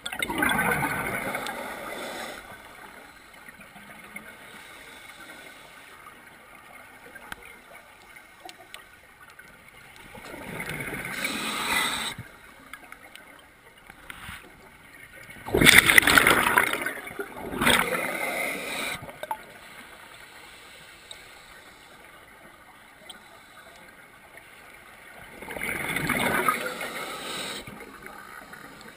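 Scuba regulator exhalation heard underwater: a loud rush of bubbles lasting a second or two each time the diver breathes out, several times, with a quieter steady background between breaths.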